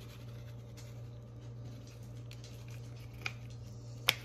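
Dry seasoning shaken from a spice packet, pattering faintly onto chopped vegetables in a glass bowl, with two sharp taps near the end, the second the louder.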